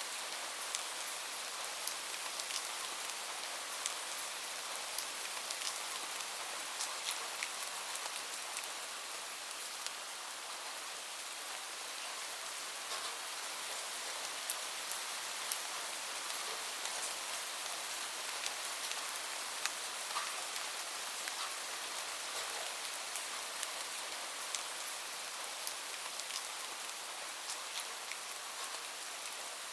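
Steady rain falling, a continuous hiss with many close, sharp drops landing on a surface.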